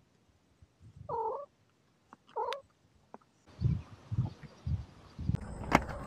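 A domestic cat gives two short calls about a second apart, then several low thumps near the end.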